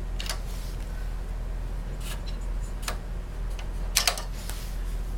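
A few light clicks and taps of small metal and plastic parts being handled, a short cluster about four seconds in and a sharper click at the end, over a steady low electrical hum.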